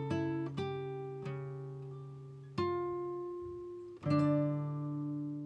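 Background music: slow guitar, a few plucked notes and chords that each ring out and die away, with a louder chord about four seconds in.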